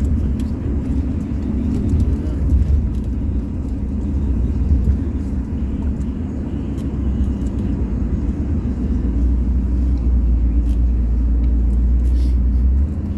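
A steady low rumble with faint scattered clicks over it; the rumble grows louder about nine seconds in and drops off just before the end.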